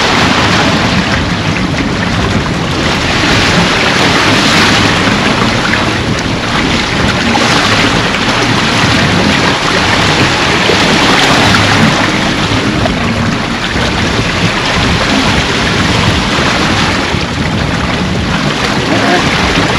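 Wind rushing over the microphone together with water washing along a sailboat's hull as it moves, a loud steady rush that swells and eases every few seconds.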